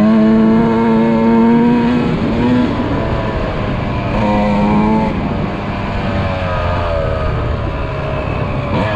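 Dirt bike engine running hard, heard on board, its revs rising and falling several times as the throttle opens and closes, with drops about two and a half and five seconds in.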